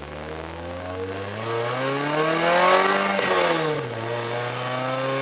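Honda Accord engine running and revving: the revs climb for about two and a half seconds, drop back, then hold steady.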